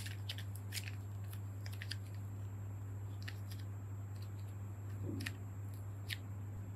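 Soft modelling clay being rolled and pressed by hand into a rose shape, giving scattered faint sticky crackles and clicks, over a steady low hum.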